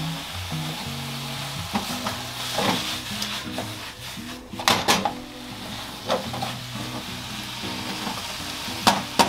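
Mushrooms frying in a miso-butter sauce in a nonstick pan, sizzling steadily as they are stirred with a silicone spatula. Knocks and scrapes of the spatula against the pan come and go, loudest about five seconds in and again near the end.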